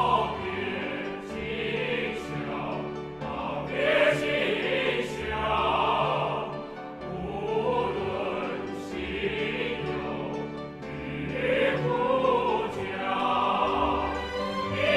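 A choir singing a slow song with vibrato over an orchestra.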